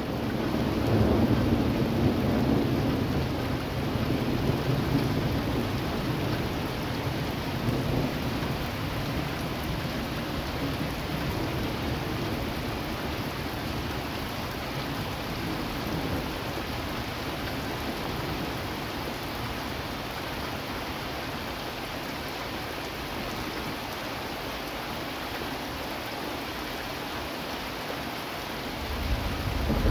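Steady rain falling during a thunderstorm, with a long low roll of thunder in the first few seconds that slowly dies away and another rumble building near the end.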